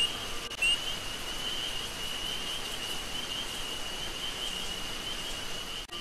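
Rainforest ambience: a steady, high-pitched insect drone over a faint hiss.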